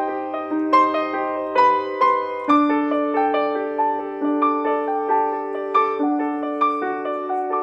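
Background piano music: a gentle melody of single struck notes over held lower notes.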